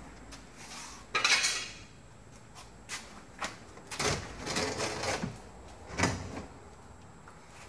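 Rubber window gasket being stripped out of a shuttle bus door's window opening by hand: a harsh scraping rush about a second in, then a run of rubbing, scraping strokes and a sharp snap near the end.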